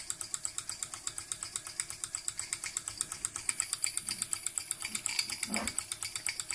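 Mamod Centurion model steam traction engine running on live steam, its double-acting piston valve cylinder beating out rapid, even chuffs of about seven a second up the chimney while it works under the load of a belt-driven Blue Thunder generator.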